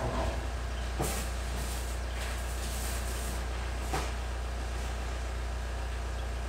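Items being handled during an unboxing: a few light knocks, about a second in and again near four seconds, and some rustling, over a steady low hum.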